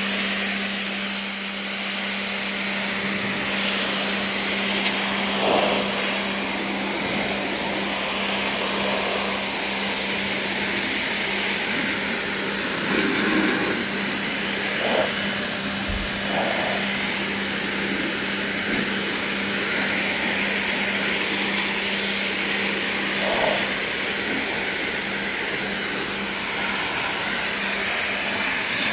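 Pressure washer running steadily, its high-pressure jet hissing against outdoor paving over a constant hum.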